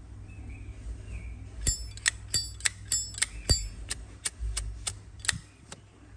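Zippo lighter being handled: a quick run of about a dozen sharp, ringing metallic clicks, about three a second, starting a little before two seconds in.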